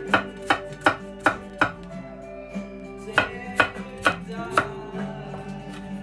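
Chef's knife chopping a garlic clove on a wooden chopping board: sharp strikes about two or three a second, a run of five, a short pause, then four more.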